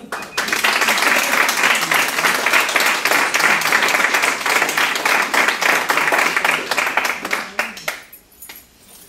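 Audience applause, many hands clapping in a dense clatter, thinning to a few scattered claps about eight seconds in.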